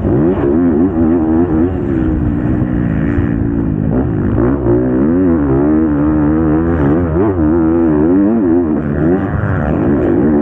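Motocross bike engine heard from the rider's onboard camera, revving hard and constantly rising and falling in pitch as the throttle is opened and rolled off through the turns of a sand track.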